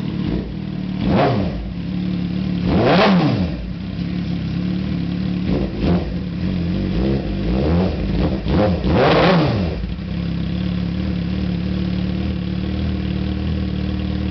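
2006 Suzuki GSX-R600 inline-four idling through a freshly fitted Two Brothers aftermarket exhaust. It is blipped several times in quick rev-and-drop bursts, the biggest near three and nine seconds in, then settles back to a steady idle.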